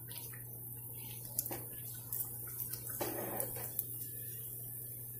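A metal slotted spoon clinks and scrapes against a frying pan as a samosa is turned and lifted in hot oil, over a soft sizzle of deep-frying, with a noisier patch of scraping and sizzle about three seconds in. A steady low hum runs underneath.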